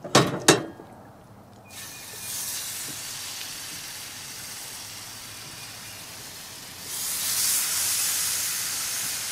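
Two sharp knocks in the first half second, then pieces of catfish frying in hot browned butter in a cast iron skillet: a steady sizzle that starts about two seconds in and grows louder about seven seconds in.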